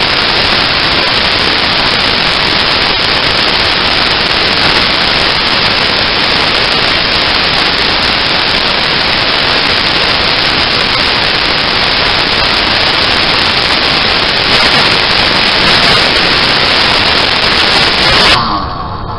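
A loud, steady hiss of noise on a motorcycle-mounted camera's microphone drowns out the engine. Near the end it drops away suddenly and the engine's note shows through faintly.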